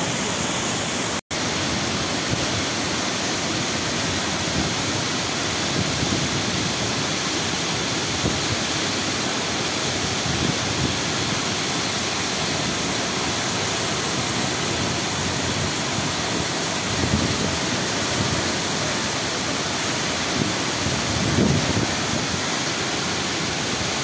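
Kempty Falls waterfall: a steady, loud rush of falling water, cutting out for an instant about a second in.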